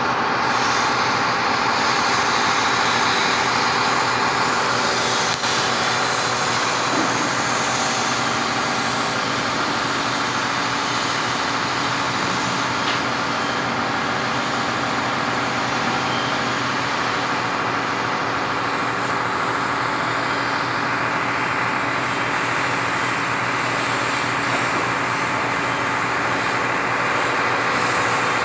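XCMG mobile truck crane's diesel engine running steadily while the crane hoists a suspended load, a constant hum of many steady tones over a dense mechanical noise.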